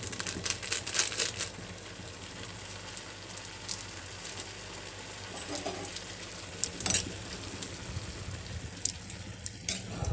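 Diced bottle gourd sizzling gently in a kadai over a gas flame, with scattered sharp clicks, most of them in the first second and a half.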